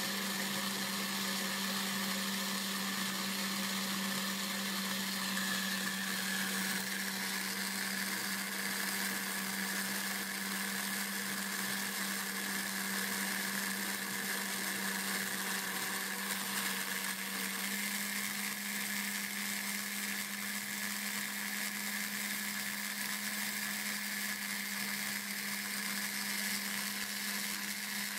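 Homemade CNC router's spindle motor running with a steady hum and whine while its cutter faces a wooden board, sawdust spraying off the surface.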